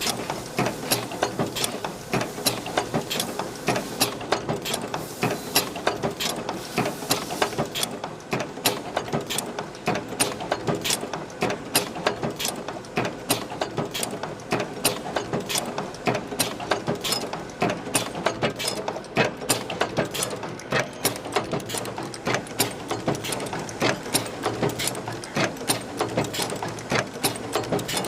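Automatic chain-making machine running, feeding and forming steel chain links with an even, rapid clatter of sharp metallic clicks, a few a second, over a steady machine hum.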